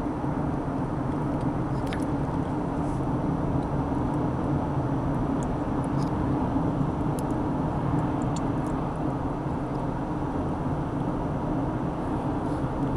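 Steady road and engine noise of a moving car, heard from inside the cabin, with a few faint clicks.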